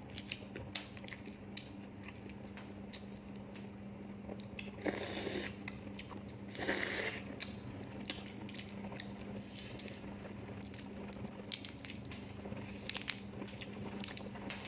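Close-miked eating: a person biting and chewing food, with many small clicks and two longer noisy stretches about five and seven seconds in. A faint steady low hum runs underneath.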